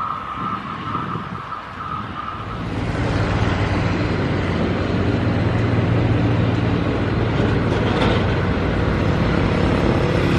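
Rail noise of a passing passenger train fading away over the first couple of seconds. A steady low hum then sets in as a WAP7 electric locomotive approaches.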